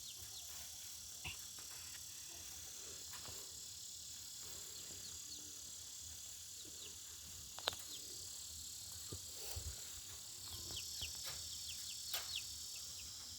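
Steady high-pitched chorus of evening insects, with a few sharp clicks and knocks as an old animal trap is worked by hand.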